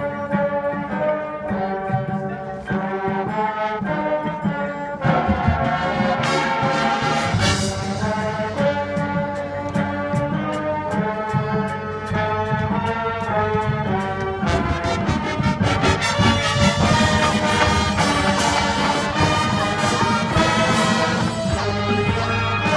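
High school marching band playing, with the brass section carrying sustained chords; the band comes in louder about five seconds in.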